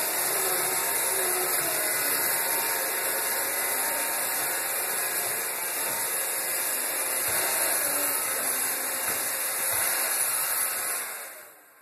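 iRobot Roomba robot vacuum running, a steady whirring hiss of its motor and brushes that dies away just before the end.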